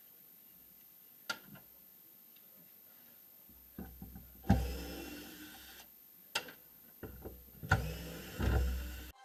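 Knocks, clicks and clatter of car parts being pulled loose and handled while a car's interior is stripped by hand. Mostly quiet at first with a single click, then from about halfway a run of irregular knocks with several sharp bangs, cutting off abruptly near the end.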